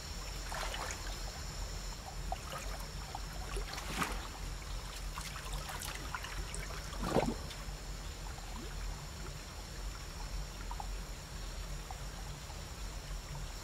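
Waterfall pool water trickling and lapping steadily, with a few brief clicks or splashes, the clearest about four and seven seconds in. A steady faint high-pitched hum runs underneath.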